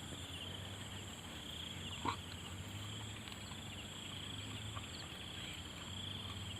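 Steady high-pitched chirring of insects, with one brief faint sound about two seconds in.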